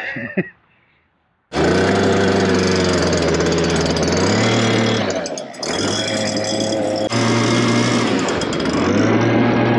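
Gas-powered leaf blower running at high throttle, blowing water and debris out of a metal gutter to dry it. It starts suddenly about a second and a half in, its engine speed shifts a few times, and it dips briefly midway before running on.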